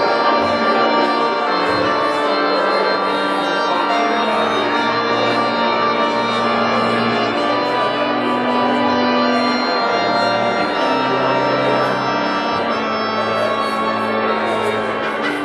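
Slow instrumental music on a keyboard instrument, with long held chords.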